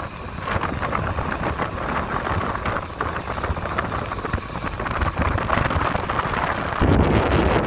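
Wind buffeting a phone's microphone on a ship's open deck at sea: a steady, crackling rush with the wash of the sea under it. Near the end it turns louder and deeper.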